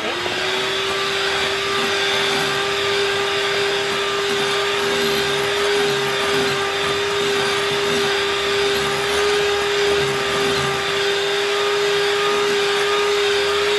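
Electric hand mixer running steadily at one speed, its beaters whipping cream-cheese frosting in a glass bowl: an even motor hum and whir.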